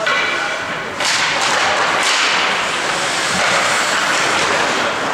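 Ice hockey play at a faceoff. Sharp stick-and-puck hits come about one and two seconds in, followed by steady scraping of skates on the ice.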